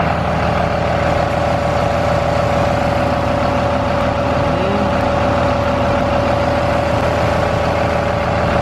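Electric DEF transfer pump on a 275-gallon tote running steadily while it pumps fluid, a steady whine over a low rumble.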